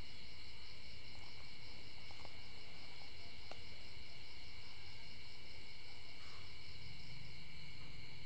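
Crickets chirring steadily, several high unbroken tones layered together.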